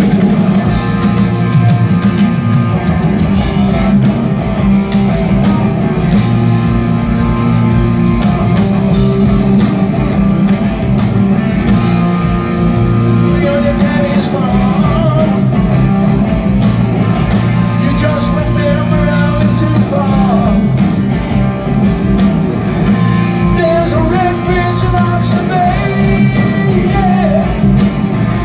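Live rock band playing loudly with distorted electric guitar, bass and drums, and a male voice singing over it.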